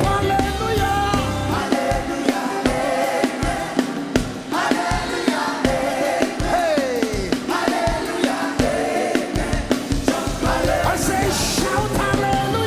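Gospel worship music with singing voices held in long notes over a steady beat.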